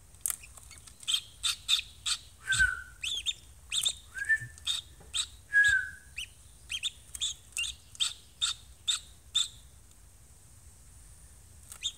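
A hatching duckling peeping from its cracked shell: a rapid run of short, high chirps with three longer, lower calls mixed in, falling quiet a couple of seconds before the end.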